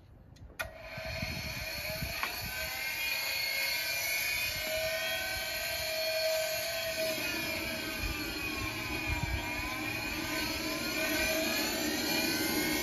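FusionFlight ARC generation-5 high-voltage micro turbine generator starting up: a click about half a second in, then a turbine whine builds with several tones at once. The tones sag in pitch around nine seconds and rise again as the turbine spools, and a lower rushing sound fills in underneath from about seven seconds.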